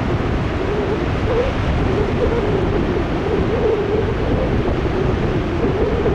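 High post-typhoon surf breaking steadily on the coast, with wind rumbling on the microphone and a wavering drone running through the noise.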